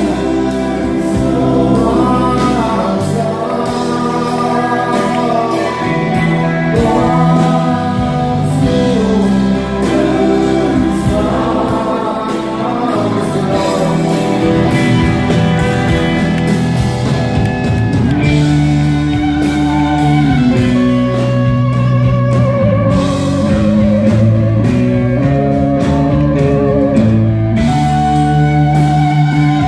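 Live rock band playing, recorded from the audience: a man singing over electric guitars, bass and drums, then an instrumental passage with a lead line over the band from about halfway through.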